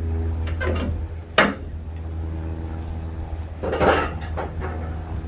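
Engine idling with a steady low hum, over which come two metal clanks: a sharp one about a second and a half in and a rougher clatter near four seconds.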